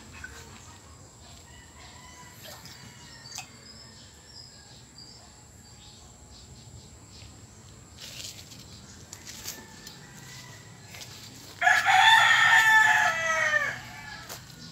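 A rooster crowing once near the end, a single call of about two seconds that drops in pitch as it ends.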